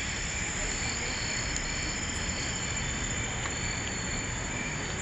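A steady chorus of crickets and other insects: a shrill high tone with lower chirps pulsing on and off, over a low background rumble.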